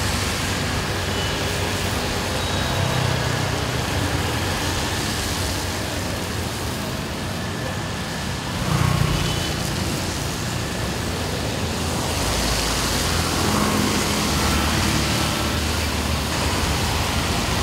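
Steady traffic noise in a flooded underpass: car, motorcycle and auto-rickshaw engines running, with tyres swishing through standing water. One vehicle passes louder about nine seconds in.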